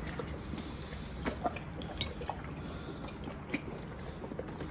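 A dog licking and smacking its lips after eating fish: scattered small, wet clicks over a faint low room hum.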